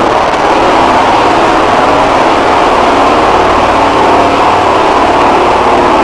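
Mock Emergency Alert System alarm tone, overdriven and clipped into a harsh, steady buzz centred around 1 kHz, running without a break.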